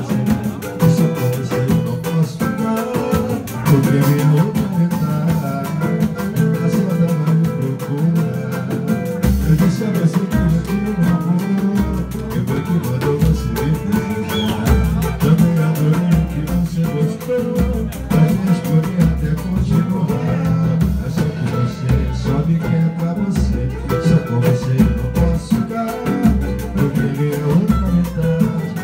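Live samba-pagode: acoustic guitars strummed with a pandeiro, and a man singing lead. A deep bass line comes in about nine seconds in.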